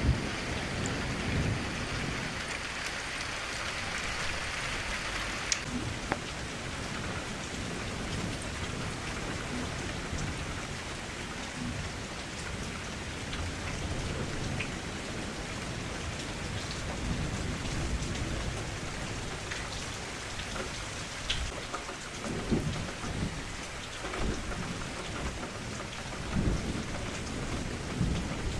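Steady rain falling against a window, with a few sharper single drop ticks. Low rumbles of thunder come near the start and again about two-thirds and nine-tenths of the way through.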